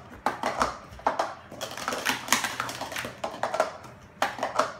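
Plastic sport-stacking cups clacking in a quick, dense run of clicks as they are stacked up into pyramids and brought back down on a stacking mat.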